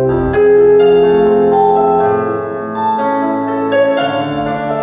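Yamaha digital keyboard played with a piano sound: a slow instrumental passage of held chords, with new chords struck a few times.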